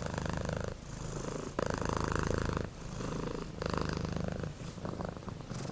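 Domestic cat purring: a steady low rumble that swells and eases in alternating phases, about a second each, with each breath in and out.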